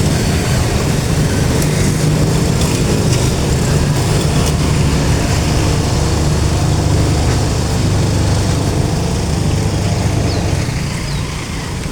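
Diesel passenger train running past: a steady low rumble of the Alsthom locomotive's engine and the rolling coaches, easing slightly near the end.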